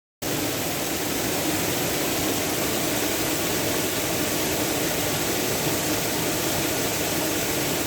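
Waterfall pouring over an old stone-block dam: a loud, steady rush of water that cuts in abruptly just after the start.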